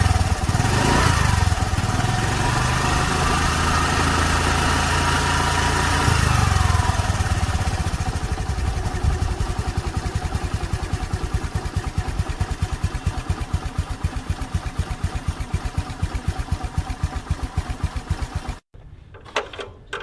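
Scooter engine running with the revs held up for the first six seconds or so, then dropping to a pulsing idle. It cuts off abruptly about three-quarters of a second before the end, followed by a couple of short bursts of sound.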